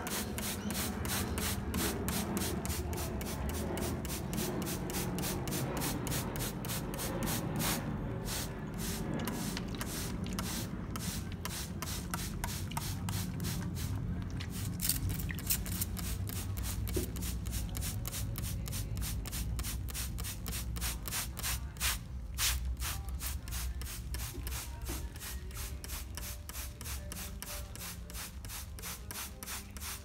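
Hand spray bottle misting a cockatiel in a rapid, regular run of squirts, several a second, as the bird bathes with its wings spread.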